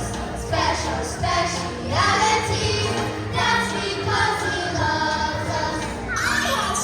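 A group of children singing a song together over backing music.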